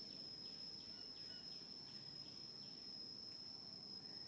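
Faint, steady, high-pitched insect drone holding one unbroken tone, over a soft outdoor background hiss.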